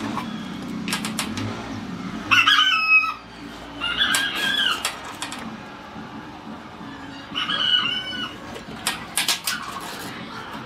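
Three short pitched animal calls, each under a second, about two and three seconds apart. A few sharp knocks come near the start and near the end, over a low steady hum.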